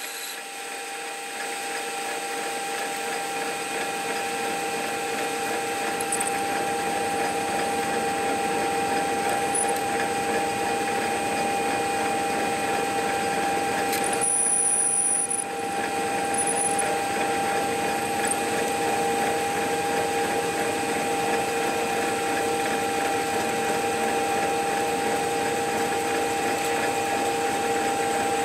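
Metal lathe running with a steady whine while a twist drill in the tailstock bores a pilot hole into a spinning phosphor bronze bush, growing louder over the first couple of seconds. A short high-pitched squeal comes about halfway through.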